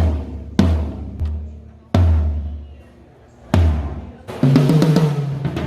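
Drum kit struck in separate, spaced hits, low drum thuds with cymbal splashes, each left to ring out, as in a soundcheck. About four seconds in the hits come faster and a steady low note joins them.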